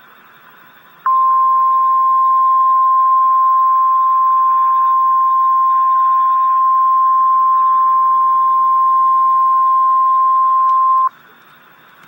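NOAA Weather Radio warning alarm tone: a single steady 1050 Hz tone over faint radio hiss. It starts abruptly about a second in, holds for about ten seconds and cuts off sharply. It signals an emergency alert, here a severe thunderstorm watch.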